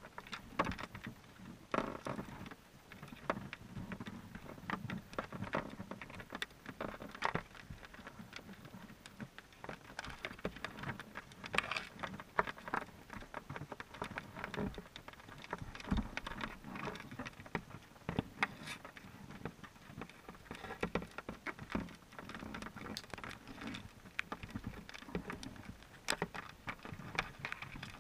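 Irregular underwater clicking and tapping inside a submerged wire crawdad trap, picked up by a GoPro in its waterproof housing as crayfish crawl over the mesh and bait. The clicks come several times a second over a faint hiss, with a few sharper knocks among them.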